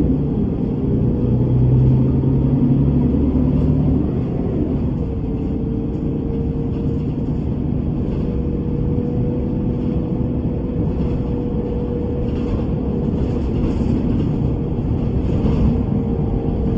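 Bus running, a steady low engine and road rumble. A steady whine sets in about five seconds in and fades near the end.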